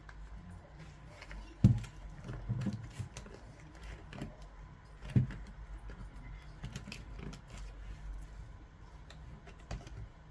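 Hands and a small tool working on a Bose SoundLink Color II speaker's casing during disassembly: scattered small clicks, taps and rattles, with two sharper knocks, one about two seconds in and one about five seconds in.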